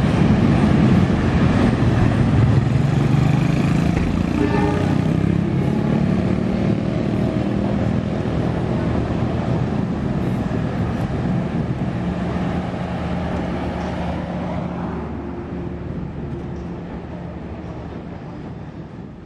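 Local diesel train running along the tracks and moving away, a steady low engine rumble with wheel noise that fades over the last several seconds. Road traffic runs alongside.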